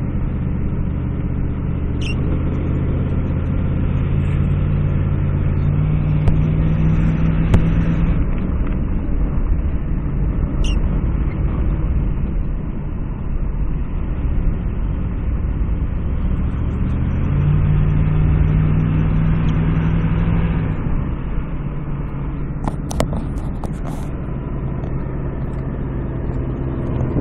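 Vehicle engine running and road noise heard from inside the cab while driving on a snowy road. The engine note climbs twice, about five and seventeen seconds in, each time falling back a few seconds later.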